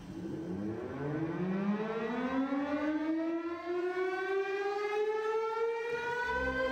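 A siren winding up, its pitch rising steeply at first and then levelling off into a steady wail. Low steady tones join near the end.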